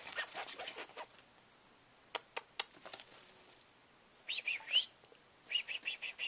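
Chihuahua puppies giving short, high-pitched whimpering cries, with a quick run of them near the end. Scuffling and a few sharp clicks come in the first half.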